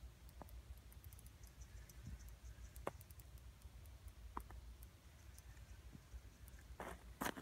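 Faint, scattered clicks from a spinning reel and ice-fishing rod being worked while a pike is on the line, with a quick cluster of louder, crunchier clicks near the end, over a low steady rumble.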